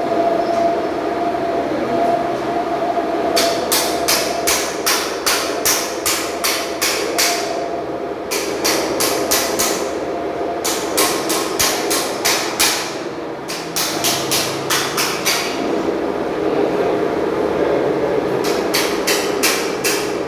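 Hammer striking metal in runs of quick blows, about three a second, with short pauses between runs, over a steady hum.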